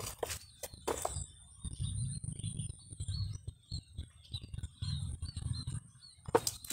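Hands pressing and shifting a coconut bonsai's roots in its pot of sand and rock: soft rubbing in two spells, with a few sharp clicks around the start and near the end. Faint bird chirps come through in the middle.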